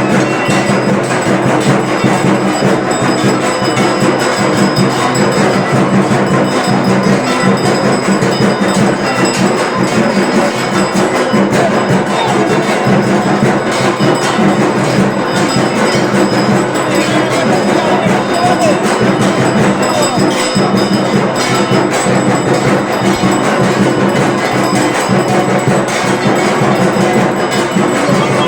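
Durga Puja aarati percussion: rapid, unbroken beating with metal bells ringing over it, dense and steady throughout.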